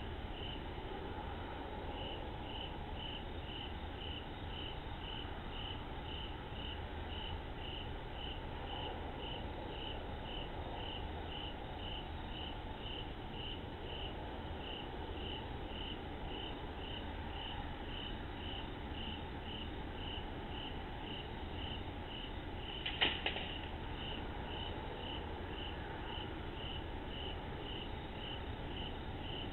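A cricket chirping steadily, two or three chirps a second, over a low even hiss, heard through a security camera's microphone. A single brief knock sounds about three quarters of the way through.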